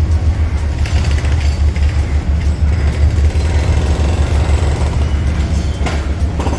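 Heavy demolition machinery at work: tracked excavators' diesel engines running with a steady, loud low rumble.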